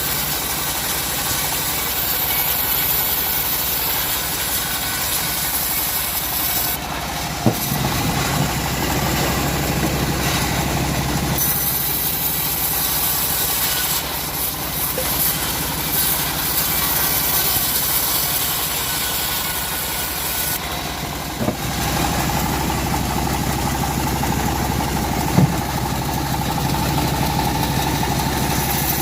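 Small petrol engine of a powered wood saw running steadily, its sound changing a few times as the load shifts. There are three sharp knocks along the way.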